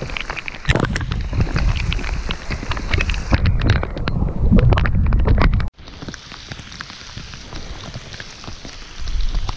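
Wind buffeting the microphone with water splashes and small knocks, a crackly low rumble that cuts off suddenly about six seconds in, leaving a quieter steady hiss.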